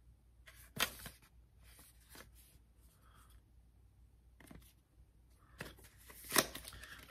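A cardboard knife box being opened and handled: scattered light scrapes, taps and rustles, the loudest a sharp one about six seconds in.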